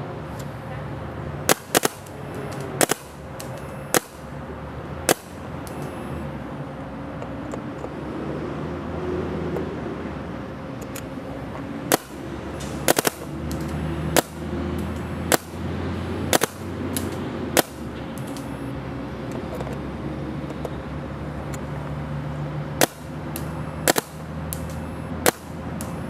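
Smart Parts Shocker RSX electropneumatic paintball marker firing single shots, spaced a second or so apart, in three groups over a steady low hum. These are test shots across a chronograph while the velocity is turned down from 315 to about 300 feet per second.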